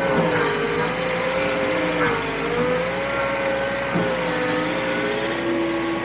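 John Deere 4052R compact tractor's diesel engine running under load as it pulls a rear box blade through recycled asphalt millings, with a steady whine that wavers slightly in pitch. Two brief knocks come about two seconds apart.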